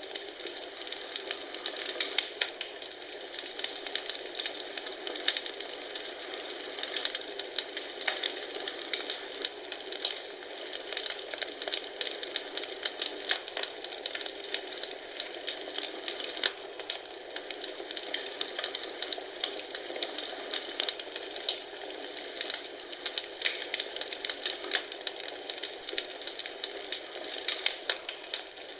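Wood fire crackling in a fireplace: a continuous stream of small, irregular pops and snaps over a soft hiss, at a steady level.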